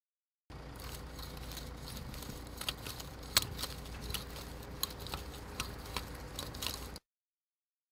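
Garden hand tool working soil: irregular crunching and scraping with sharp clicks over a faint low hum, starting about half a second in and cutting off suddenly near the end.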